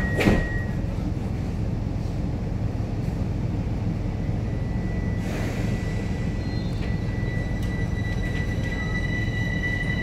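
Inside a Bombardier metro train car: a sharp thump just after the start as the doors shut, then the train runs with a steady low rumble. A thin high steady whine grows louder in the second half.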